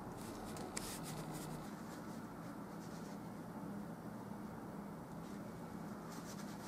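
Paintbrush strokes in oil paint, brief rubbing strokes from about half a second to a second and a half in and again near the end, over a low steady hum.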